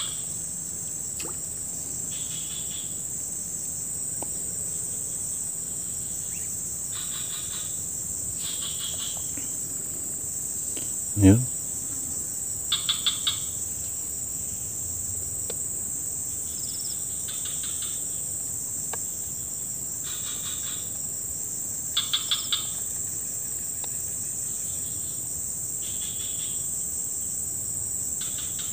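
Insects keep up a steady high-pitched drone, with short pulsed chirping calls coming every couple of seconds, some in quick clusters of three or four. About eleven seconds in there is a single short, loud sound that drops quickly in pitch.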